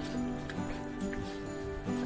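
Background music of held notes that change every half second or so.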